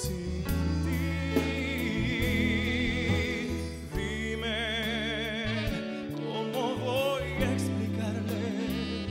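A male vocalist sings a slow romantic ballad live over band accompaniment with a steady bass line. He holds long notes with strong vibrato, without clear words.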